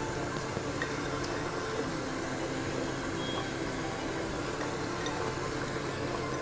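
Rice and chicken in water bubbling steadily in an open pressure cooker on the stove: an even simmering hiss with a few faint clicks.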